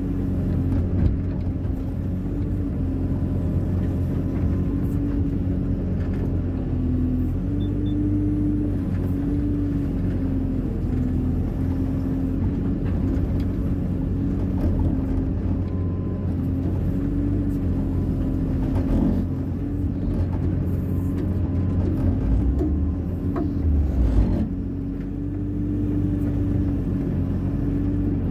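Diesel engine of a Hyundai 140 wheeled excavator running steadily, its pitch dipping and rising slightly as the hydraulics take load while it levels sand. A few brief knocks come in the second half.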